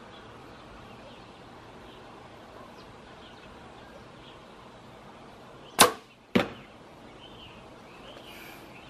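Compound bow shot: a loud sharp snap as the string is released, about six seconds in, then a second sharp crack about half a second later.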